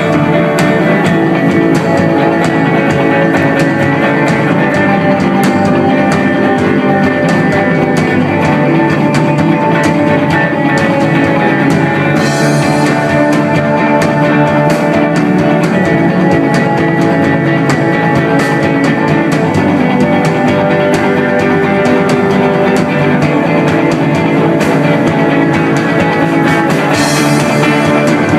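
Rock band playing live, an instrumental stretch of guitars over a drum kit with no singing. Two brief bright cymbal-like swells stand out, about twelve seconds in and again near the end.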